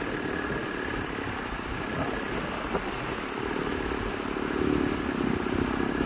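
Small two-stroke chainsaw engine running steadily at a low, even speed.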